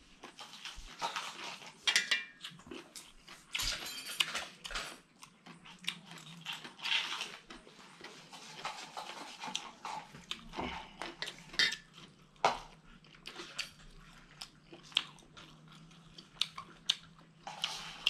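Close chewing and crunching of mouthfuls of papaya salad: irregular crunches and wet mouth clicks, coming and going throughout.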